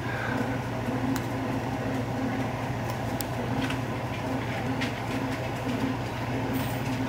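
A machine's steady low hum with a softly pulsing tone above it, and a few faint light clicks.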